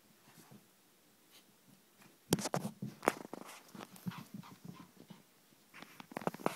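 A small dog tussling with a plush toy. A quiet start, then a run of sharp clicks, knocks and low thuds about two seconds in, and another cluster near the end.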